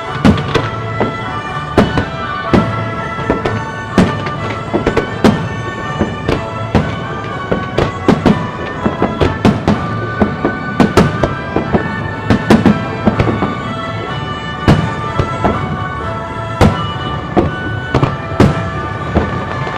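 Aerial fireworks shells bursting in quick, irregular succession, dozens of sharp bangs, over music with long held tones.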